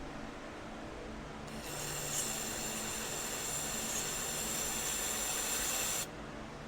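A pressurized spray hissing in one continuous blast of about four and a half seconds, with a steady high whistle in it, starting abruptly about a second and a half in and cutting off suddenly near the end.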